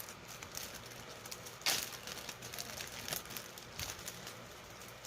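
Handling noise close to the microphone: scattered small clicks and crinkles, with one louder crackle just under two seconds in, as a slime or squishy container is picked up and handled.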